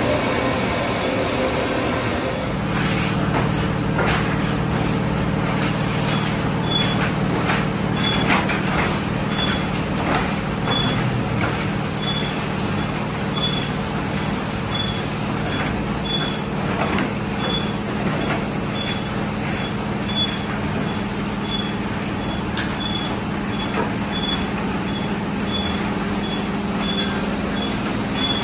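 Econocraft tunnel car wash running: the overhead cloth curtain and wrap brushes swish and slap over a car under water spray, over a steady machinery hum that steps up about two and a half seconds in. From about six seconds in, a short high beep repeats a little faster than once a second.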